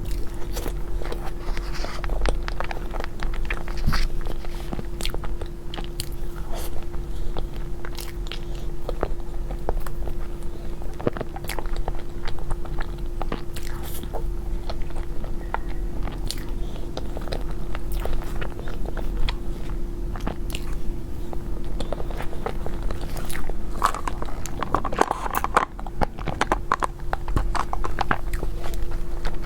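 Close-miked eating sounds of a dessert: bites and wet chewing with many small sharp mouth clicks, over a steady low hum.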